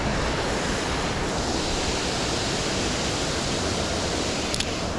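Steady rushing of a creek waterfall, an even wash of falling water, with one brief high click near the end.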